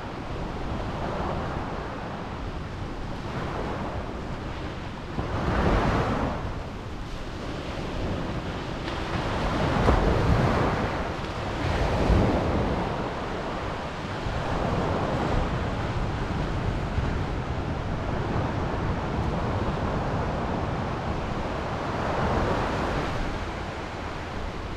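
Ocean surf washing over a flat lava-rock shelf at the shore: a steady wash with waves swelling up every few seconds, the loudest about ten and twelve seconds in.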